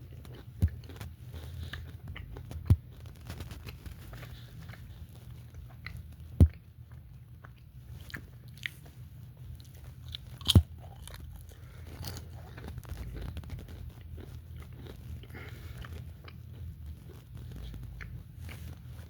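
Close-up chewing and biting of a sandwich with crispy bacon, soft crunching throughout, over a low steady hum. Four sharp clicks stand out, the loudest about six and ten seconds in.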